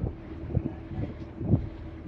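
Wind buffeting the microphone in uneven gusts on the deck of a moving tour boat, with the boat's engine droning steadily underneath.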